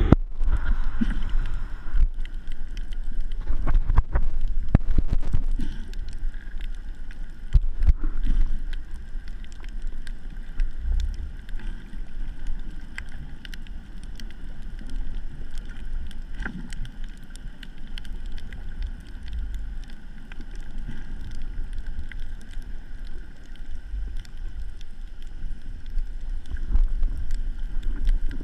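Muffled underwater sound picked up through a GoPro's waterproof housing on a pole: a steady low rumble of water moving around the camera. Sharp knocks and clicks from handling the pole come thickest in the first eight seconds, with a few more later.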